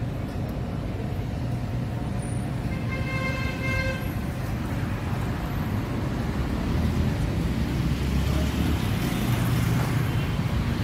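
Road traffic with a steady low rumble of vehicle engines, and one car horn sounding for about a second, about three seconds in.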